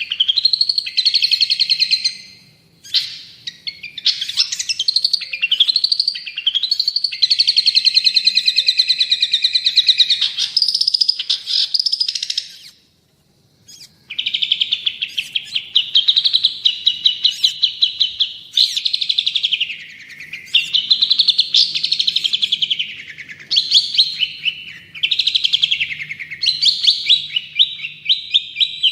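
Long-tailed shrike (cendet) singing a loud, continuous song of rapid repeated notes and rising and falling sweeps, breaking off for about a second and a half near the middle.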